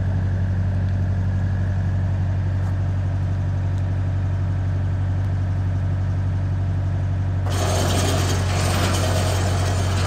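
Electric gear motor of a garri frying machine running with a steady low hum. About seven and a half seconds in, a loud, even rushing noise joins it.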